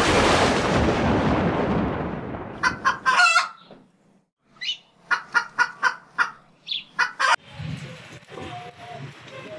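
Cartoon intro sound effects: a loud thunder crack that fades over about two and a half seconds, then a run of short chicken clucks. Quieter background sound follows near the end.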